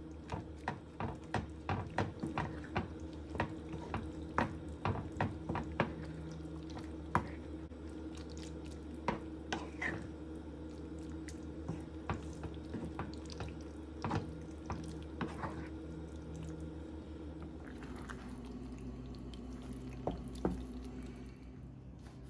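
A spatula stirring grated mozzarella into penne in a thick, creamy sauce in a nonstick frying pan: wet squelching with many light taps of the spatula against the pan, most frequent in the first few seconds, over a steady low hum.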